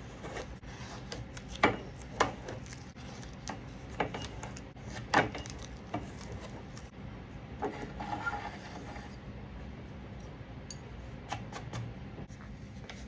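Hands handling a wooden hole-punch template and an aluminium tube on a foam RC model fuselage: a handful of sharp taps and clicks, and masking tape peeled off in a short rustle about eight seconds in.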